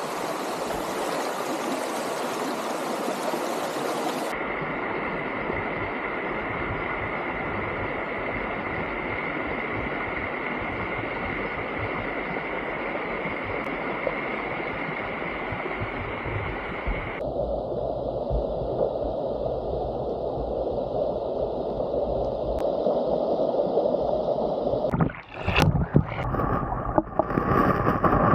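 Shallow, rocky stream running over stones, a steady rush of water whose tone changes abruptly about four seconds in and again past halfway. Near the end come irregular knocks and sloshing as the microphone is dipped under the water.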